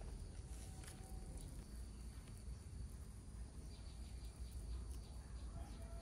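Faint outdoor background with a steady low rumble, a few light clicks and a few faint short chirps.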